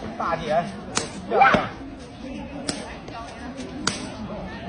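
Crisp smacks of a foot kicking a badminton shuttlecock back and forth in a rally: three sharp hits, a second or more apart. Brief voices call out between the first hits, loudest about a second and a half in.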